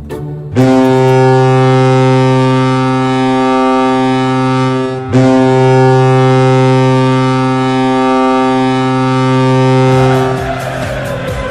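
Colorado Avalanche goal horn, a deep ship-style air horn, sounding two long blasts of about five seconds each with a brief break between them. Near the end it gives way to music with a beat, the start of a goal song.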